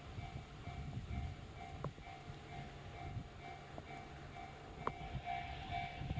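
Japanese railway level-crossing alarm ringing: an electronic bell repeating in rapid, evenly spaced strokes over a low rumble, growing louder near the end. Two sharp clicks are heard, about two and five seconds in.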